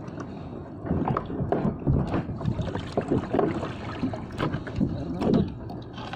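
Water lapping and slapping against a fishing kayak's hull, with irregular knocks of gear being handled on deck.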